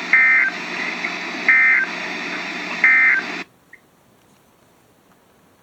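Emergency Alert System end-of-message tones: three short bursts of warbling data tones about a second and a half apart, over steady radio static. The static cuts off suddenly about three and a half seconds in, leaving near silence.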